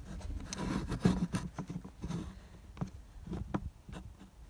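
Irregular rustling and scraping right at the microphone, with scattered clicks and knocks, loudest about a second in: close movement noise.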